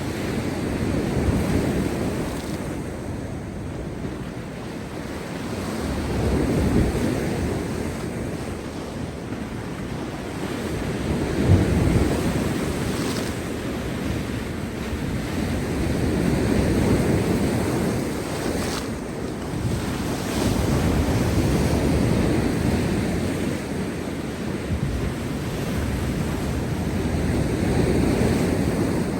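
Heavy surf breaking on rocks, a continuous rushing wash that swells and ebbs every few seconds, with one sharper crash about halfway through. Wind buffets the microphone throughout.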